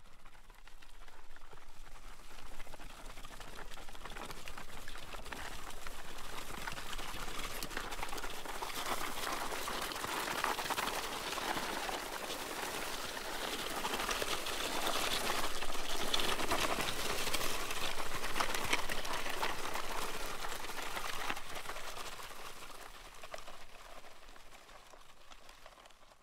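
Something being dragged across gravel: a continuous gritty scraping and crunching of loose stones. It rises in the first couple of seconds, grows louder through the middle, and fades away near the end.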